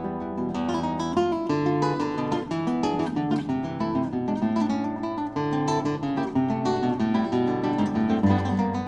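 Background music: acoustic guitar playing a quick run of plucked and strummed notes over lower held notes.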